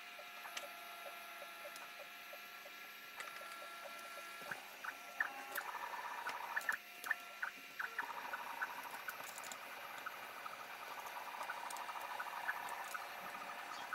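A 3D printer running, its stepper motors giving steady held tones. From about four and a half seconds in, a run of sharp clicks and light rattling from a clear plastic CPU clamshell being handled and opened.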